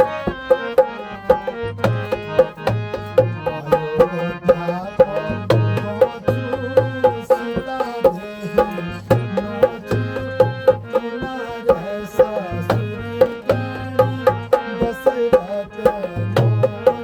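Instrumental folk-style music: a hand drum plays a steady repeating rhythm of sharp strokes and deep tones under a melody line.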